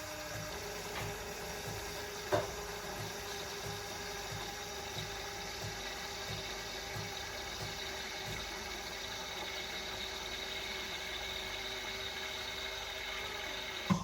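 De'Longhi Magnifica Evo coffee machine's pump running steadily, a humming with a low regular pulse as water is pushed through. There is a sharp click about two seconds in, and another click as it stops near the end.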